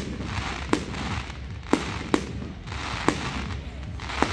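Aerial firework shells bursting: about six sharp bangs in four seconds, irregularly spaced, over a steady hiss.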